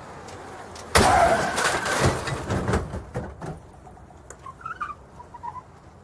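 Car crash sound effect. A steady low rumble runs until about a second in, when a sudden loud metal-and-glass impact hits. A couple of seconds of crunching and clattering debris follow, thinning out to scattered small tinkles of falling pieces.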